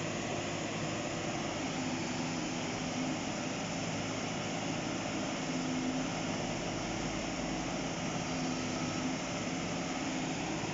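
Diesel engine of a JCB tracked excavator running under load as it works its arm and bucket, its note shifting now and then, over a steady rush of fast-flowing muddy floodwater.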